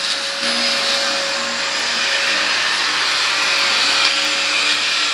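Vacuum cleaner running steadily, a loud even rush with a constant motor whine.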